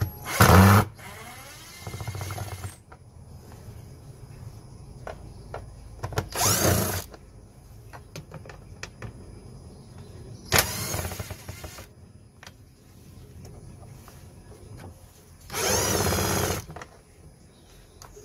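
Cordless drill-driver with a T25 Torx bit spinning out the screws of a car's air filter housing. It runs in short bursts about a second long, four times a few seconds apart, with a shorter, quieter run after the first.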